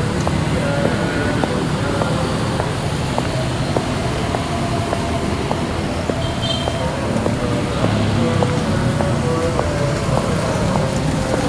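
Steady road traffic noise with faint music playing over it.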